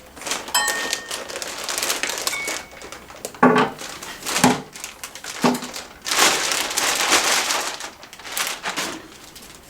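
Plastic bag being pulled off an amplifier and crumpled, irregular crinkling and rustling with a few sharper, louder crackles.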